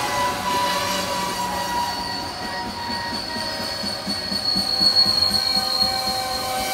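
Loaded coal hopper cars rolling slowly past, their steel wheels squealing in several steady high tones as the train brakes toward a stop. The shrillest squeal swells about four to five seconds in, over a soft rhythmic rumble of the wheels.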